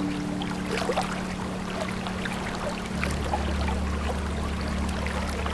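Running water trickling and splashing steadily, under long-held low instrumental notes. A deeper bass note comes in about three seconds in.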